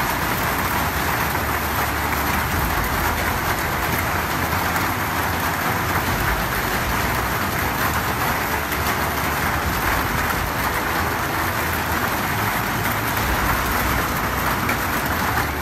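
Hailstorm: hailstones falling hard onto pavement, street and trees, a dense, steady hiss of impacts without a break.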